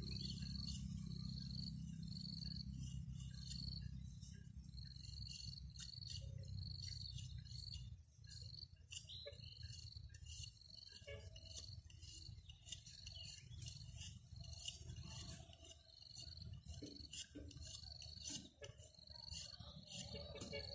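Insects chirping: a high chirp repeated in short pulses over and over. Under it is a low rumble that drops away about eight seconds in, and scattered light clicks.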